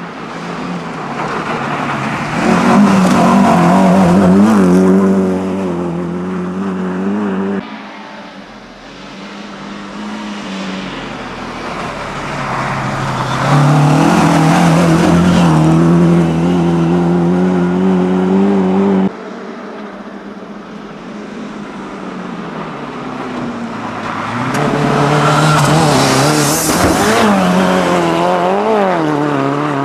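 Rally cars at racing speed driving past one after another, their engines revving hard, the pitch climbing and dropping through throttle and gear changes. The sound cuts off abruptly between cars, about eight seconds in and again about nineteen seconds in.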